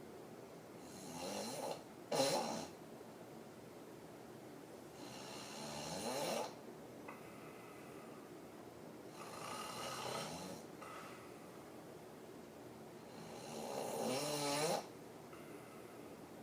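A woman in deep sleep on her back, snoring hard with her mouth open. There are four long snores about four seconds apart, each building in loudness and then breaking off suddenly, and a short loud burst just after the first.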